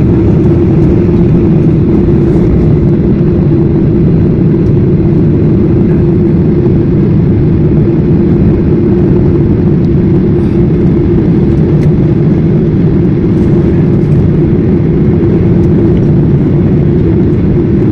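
Cabin noise of a Boeing 737-800 taxiing on its twin CFM56-7B engines at low power, heard from inside the cabin: a steady rumble with a constant low hum.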